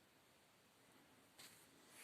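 Near silence: room tone, with a faint brief scuff about one and a half seconds in.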